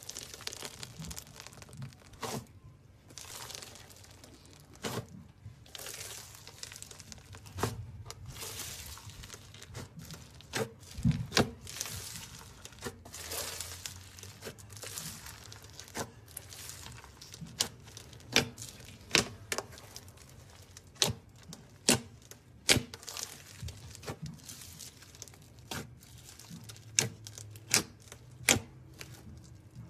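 Hands squeezing and stretching foam-bead slime (floam): a crunchy, crinkly crackle with many sharp pops, coming about once a second in the second half.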